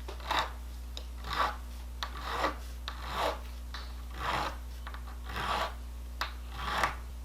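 A hand file rasping across a small clear 3D-printed plastic part in slow strokes, about one a second, shortening it and filing the printed nubbins flat.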